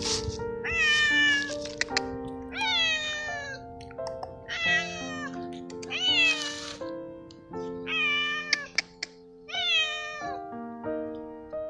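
Stray male tabby cat meowing very loudly for food: about six long meows, each falling in pitch. Background music with held notes plays under the meows.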